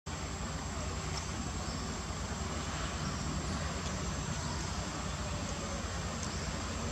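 Steady outdoor ambience: insects droning with one constant high whine, over a low rumble.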